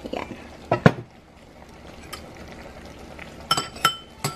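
A ceramic bowl of raw shrimp tipped out into a metal cooking pan: a few soft knocks as the bowl and shrimp meet the pan, the loudest just under a second in. Near the end, three sharp clinks with a short ring against the pan.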